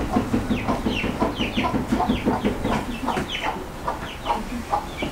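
Chickens clucking in a steady run of short calls, several a second.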